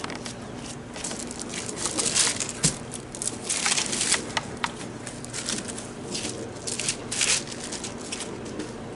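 Plastic crinkling and rustling in irregular bursts as homemade play dough is kneaded and squished.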